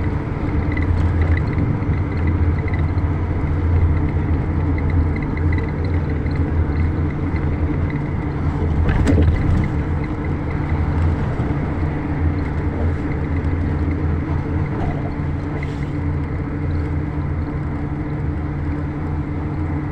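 Steady low rumble of a moving road vehicle's engine and tyres, with a faint high whine, and a brief knock about nine seconds in.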